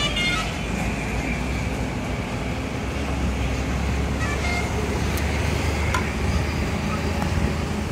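Heavy truck's diesel engine running as the tractor-trailer, hauling a triple-deck pig crate, pulls slowly across the lot: a steady low rumble.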